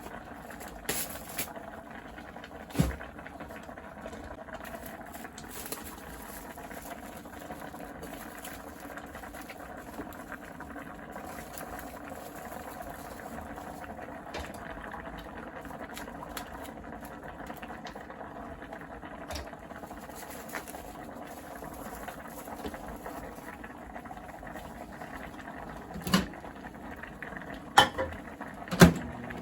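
Liquid bubbling steadily in a pot as it simmers, with a sharp knock about three seconds in and a few louder knocks near the end.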